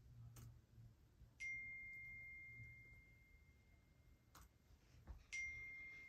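Two single-pitch phone message-alert chimes, each starting suddenly and fading slowly over about two seconds, about four seconds apart, with a few faint clicks in between.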